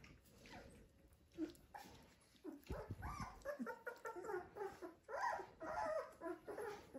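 Young Dalmatian puppy whimpering in short, repeated high calls that start a couple of seconds in and keep coming.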